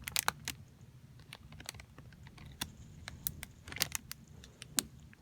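Scattered light clicks and taps of plastic model-kit runners and parts being handled and knocking together, about a dozen irregular ticks with a cluster near the four-second mark.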